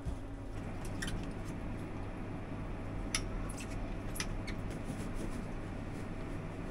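Cooking work in a small food-truck kitchen: a few light clicks and clinks of utensils and containers being handled, over a steady low machine hum.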